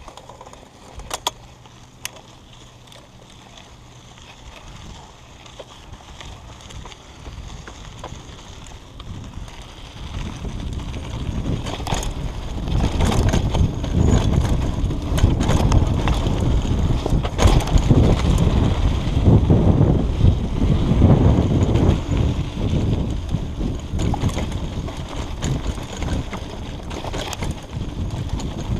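Mountain bike riding fast down a dirt trail: wind buffeting the microphone and knobby tyres rumbling over the ground, getting much louder from about ten seconds in as the bike picks up speed, with scattered sharp clicks and rattles from the bike.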